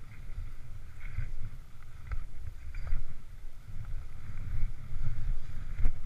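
Wind buffeting the microphone of a helmet-mounted GoPro as the skier glides slowly on groomed snow, with skis scraping the snow and a few light clicks of skis and poles; the sharpest knock comes near the end.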